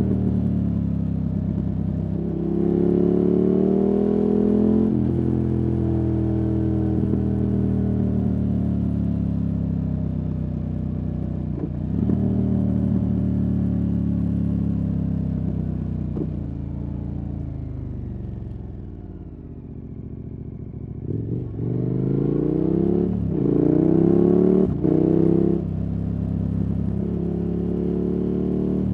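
KTM 1290 Super Adventure S's 1301 cc V-twin running through an aftermarket Wings exhaust, revs climbing and dropping through the gears with sharp breaks at each shift. About two-thirds through it eases off and goes quieter, then opens up hard again with several quick shifts.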